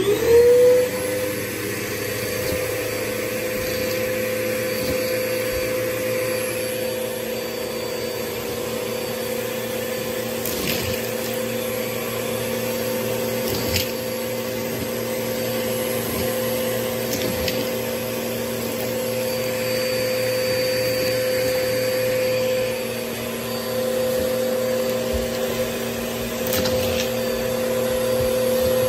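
Vacuum cleaner motor spinning up and then running steadily with a high hum as its wand works over a shag rug, with a few sharp clicks along the way.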